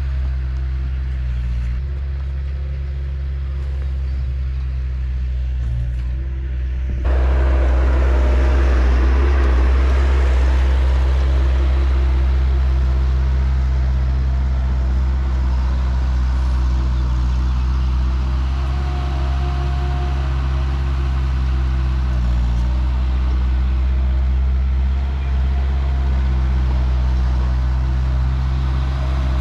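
A vehicle engine running steadily with a low hum and road noise. It gets suddenly louder and noisier about seven seconds in.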